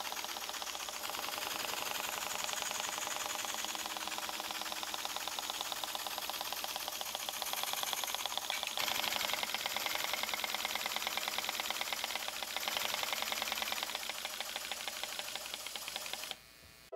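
Small aluminium wobble-type (oscillating-cylinder) model steam engine running fast on compressed air: a rapid, even chuffing clatter of exhaust puffs and moving parts. It gets a little louder and brighter about halfway through and stops shortly before the end.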